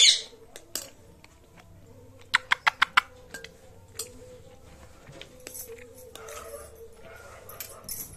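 Rose-ringed parakeet scratching and tapping at close range, its beak and claws clicking on a hard surface, with a brief loud sound at the very start and a quick run of about five taps a little after two seconds in, then softer scratching.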